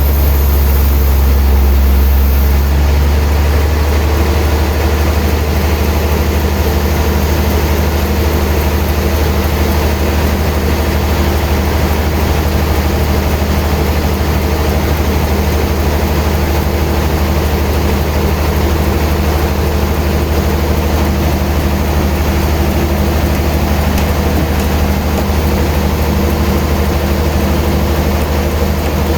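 Heavy sawmill machinery running steadily with a loud low hum, easing slightly about three seconds in.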